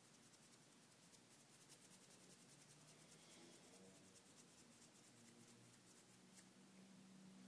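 Near silence: faint room tone with faint rapid ticking.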